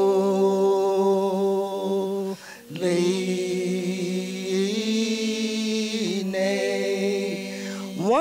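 Women singing a gospel chorus a cappella through microphones, holding long drawn-out notes, with a short break about two and a half seconds in and another near six seconds.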